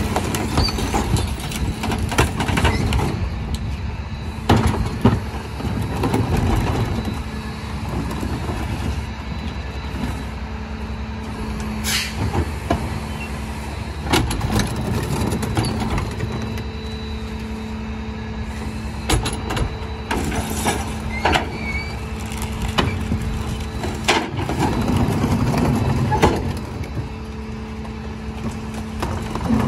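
Split-body rear-loader garbage truck running with a steady hum while its cart tippers lift and dump wheeled trash and recycling carts. Repeated bangs and rattles come from the carts and lids knocking against the hopper.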